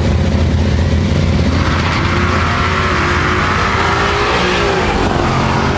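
2011 Mustang GT's 5.0 V8 pulling hard at full throttle down a drag strip, its pitch climbing for about three seconds, then dropping briefly near the end as it shifts gear.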